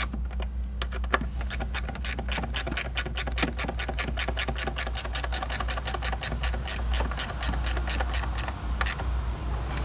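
Ratcheting wrench clicking quickly and evenly, about six or seven clicks a second, as a nut is run down on its stud with short back-and-forth swings; the clicking stops near the end.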